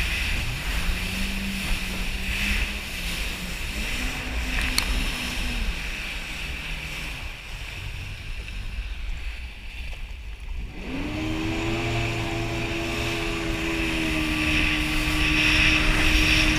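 Yamaha jet ski engine changing pitch with the throttle: it revs up and eases off twice in the first few seconds and drops back in the middle. About eleven seconds in it opens up to a higher, steady pitch and holds there, over a steady hiss of water and wind.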